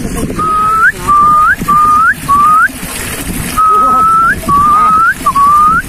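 A person whistling a run of seven notes, each held level for about half a second and then sweeping sharply upward at its end, with a short pause in the middle of the run.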